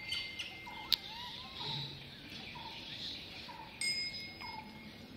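Outdoor ambience with a bird calling over and over in short rising-and-falling notes, about two a second. A single sharp click comes about a second in, and near the end a metallic chime is struck once and rings for about a second.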